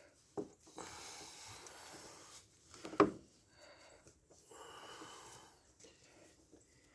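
Handling noise from garden hose repair work: low rustling and rubbing, with one sharp knock about three seconds in.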